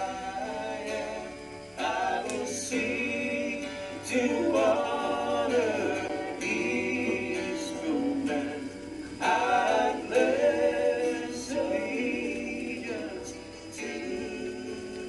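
Background music with singing voices.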